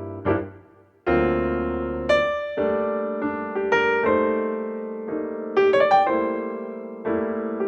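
Background music: solo piano playing gentle chords and melody notes, each struck note fading before the next.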